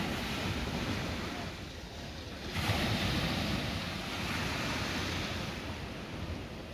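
Sea waves breaking and washing up a beach, with wind on the microphone; a new surge of surf comes about two and a half seconds in and slowly ebbs.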